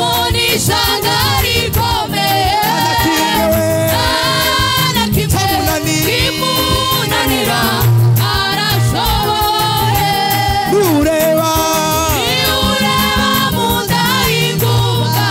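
Gospel worship singing in Kinyarwanda: a mixed group of men's and women's voices singing into microphones over instrumental accompaniment with a steady beat and bass.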